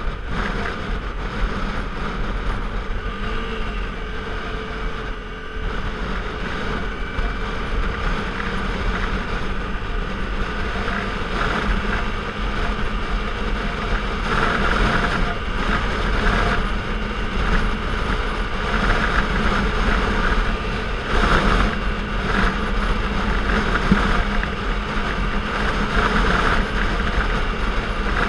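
Motorcycle engine running steadily at road speed, mixed with wind rush, a little louder in the second half.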